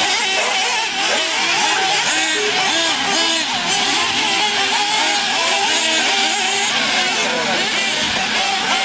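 Several nitro RC buggies' small two-stroke glow engines screaming together on the track, their pitches rising and falling as each one revs up and lets off through the corners and jumps.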